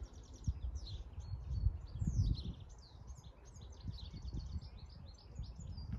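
Small birds chirping and trilling continuously over a low, uneven rumble that swells briefly about two seconds in.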